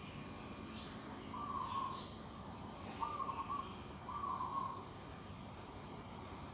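A bird calling a short repeated note three times, each call about half a second long, with faint higher chirps of other small birds behind it.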